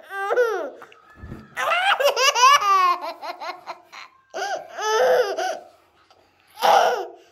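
A toddler laughing in several high-pitched bursts, the longest a run of quick pulsed laughs about two seconds in, then shorter laughs.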